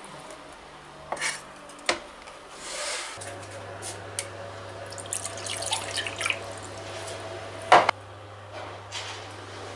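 Water poured from a cup into an empty glass bowl, splashing and trickling. A single sharp clink comes near the end.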